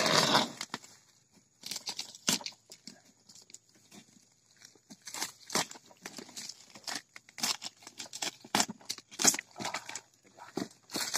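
Black plastic wrapping being torn and pulled off a cardboard parcel, crinkling and ripping in irregular bursts.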